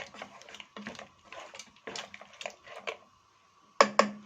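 A spoon stirring and scraping chopped onion and garlic around in a cooking pot in a run of irregular clicks. Near the end the spoon knocks sharply on the pot twice, the loudest sounds here.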